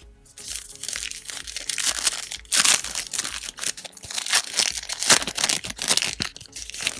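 Plastic trading-card pack wrapper crinkling and tearing as a pack is ripped open, a dense run of crackles that stops abruptly near the end.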